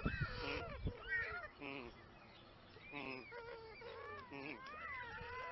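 White stork nestlings giving a string of short, rising-and-falling begging calls.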